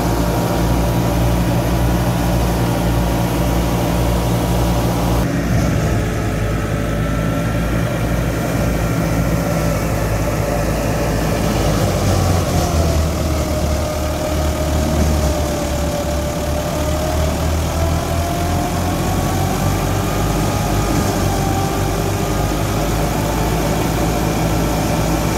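Massey Ferguson 385 tractor's four-cylinder diesel engine running steadily under load, driving a wheat thresher through its PTO shaft. A whine from the running machinery dips in pitch and rises again partway through.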